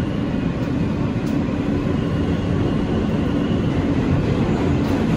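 Inside an R160 subway car running through the tunnel between stations: steady rumble of steel wheels on the rails, with a steady hum underneath.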